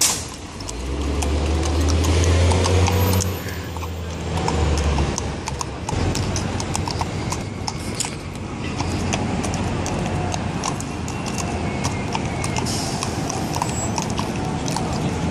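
Hooves of pack horses clip-clopping at a walk on a concrete sidewalk, a steady run of sharp clicks. A low engine hum sits under them for the first few seconds.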